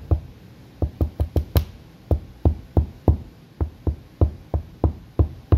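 Repeated dull thumps of a hand pressing and tapping a chrome emblem firmly onto a fibreglass boat hull to seat its adhesive: about seventeen knocks, roughly three a second and slightly uneven.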